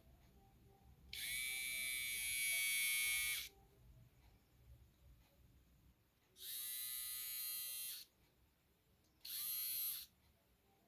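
Small electric body-hair trimmer switched on and off three times: a high-pitched motor buzz that runs about two seconds, then about one and a half, then under a second, each starting with a short rise in pitch as the motor spins up.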